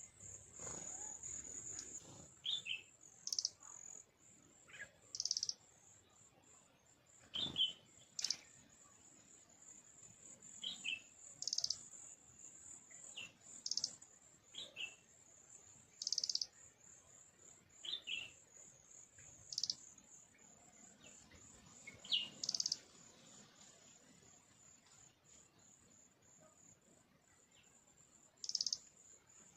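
Small birds giving short, high chirps every second or two over a continuous high-pitched trill. There is one sharp click about seven seconds in.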